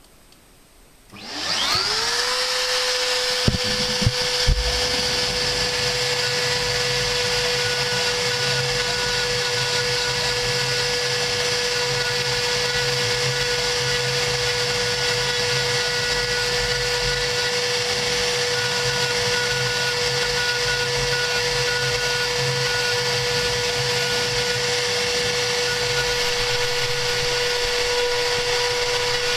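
CNC router spindle spinning up about a second in and settling into a steady high whine, with a few sharp knocks shortly after, then running steadily as its V-bit engraves outlines into 3 mm cardboard.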